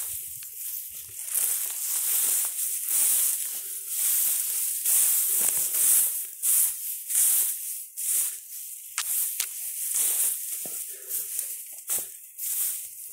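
Dry grass, weeds and leafy brush rustling and swishing against a person pushing through them on foot, in irregular swells, with a few sharp clicks in the second half.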